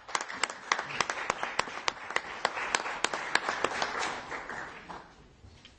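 Audience applauding, with single claps standing out close to the microphone over the spread of hand-clapping; the applause dies away near the end and cuts off abruptly.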